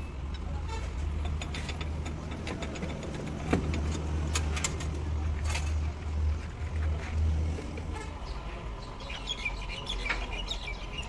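A vehicle engine's low rumble that stops about three quarters of the way through, with scattered sharp clinks and taps of metal tools and parts.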